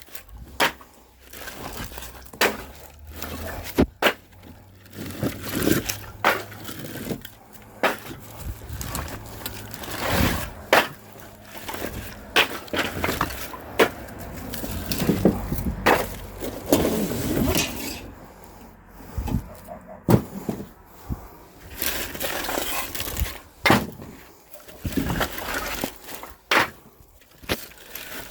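Split firewood being unloaded, logs knocking and clattering against each other in irregular clunks, roughly one every second or two, with scraping and shuffling between them.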